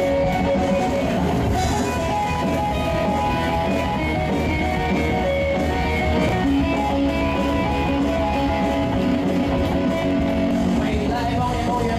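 Guitar-led pop music playing an instrumental passage with no singing, over a steady beat.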